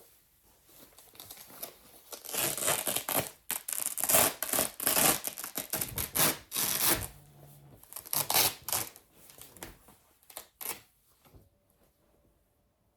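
Velcro straps on a leg massager wrap being ripped open and pressed shut, a rapid series of short ripping bursts for several seconds, then two more and quiet.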